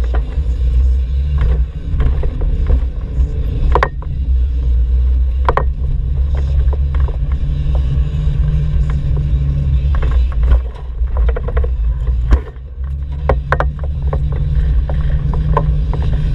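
Volkswagen T3 van's engine running on the move, heard from inside the cab as a steady low rumble, with short rattles and knocks from the cabin throughout. The rumble dips briefly about twelve seconds in, then picks up again.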